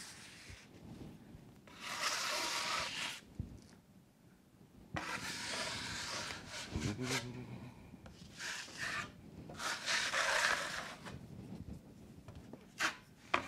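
Drywall knife scraping along drywall tape bedded in wet joint compound on a ceiling seam, pressing the tape into the mud in several long strokes with short pauses between them.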